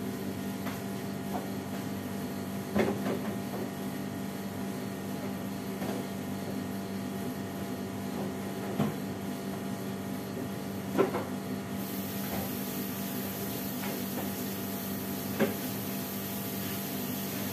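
Dishes and pots clinking and knocking now and then as they are washed by hand at a kitchen sink, over a steady background hum.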